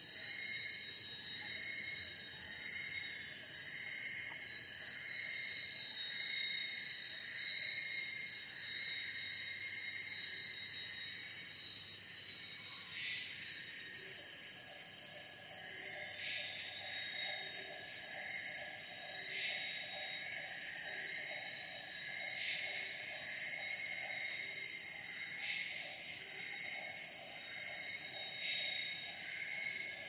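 Tropical rainforest morning chorus of insects, cicadas and birds: a constant high-pitched insect drone with a steady pulsing insect call underneath. From about halfway a call repeats roughly every three seconds and a lower rapid trill joins in.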